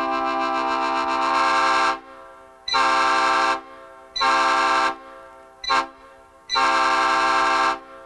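Nathan Airchime P5A five-chime train horn, built from mixed old and new bell castings and mounted on a pickup, sounding a steady multi-note chord that ends about two seconds in. It then blows long, long, short, long, the grade-crossing pattern.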